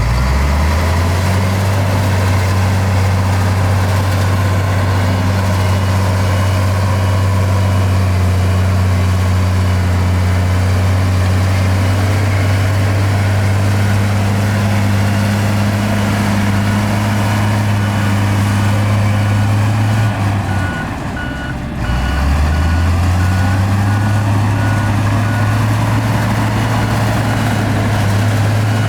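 Heavy diesel engine of earthmoving machinery running hard under load, revving up at the start. It eases off for a moment about two-thirds of the way in, then revs up again. Reversing alarms beep steadily over it, a higher-pitched one through the first two-thirds and a lower one through the last third.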